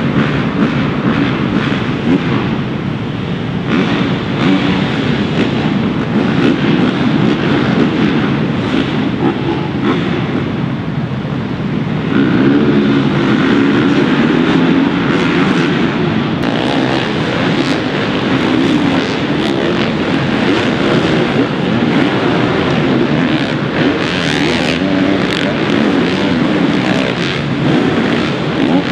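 Several motocross bikes' engines revving and running hard as they ride a dirt supercross track, overlapping one another, louder from about twelve seconds in.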